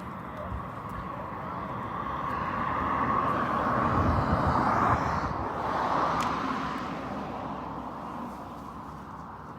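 A vehicle driving past on the road, its tyre and road noise swelling to a peak about four to five seconds in and then fading away.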